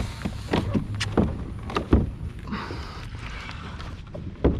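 Irregular knocks and clunks on a plastic pedal kayak, a Hobie Outback, over a low rumble of wind on the microphone, with a short hiss about two and a half seconds in.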